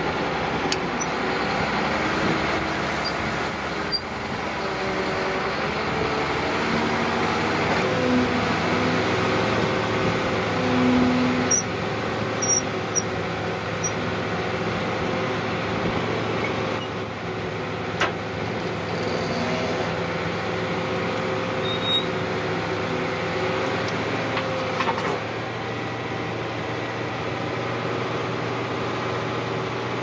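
Heavy diesel machinery running steadily, with a thin held tone through the middle and a few short sharp clicks.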